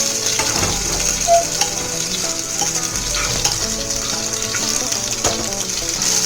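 Chopped garlic and green chillies sizzling in hot oil with mustard and cumin seeds in a pressure cooker as they are sautéed, with a few clicks of a spoon stirring against the pan, the loudest about a second in.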